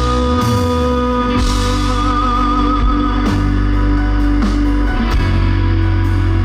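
Live band playing an instrumental passage: sustained guitar notes over a steady bass, without singing.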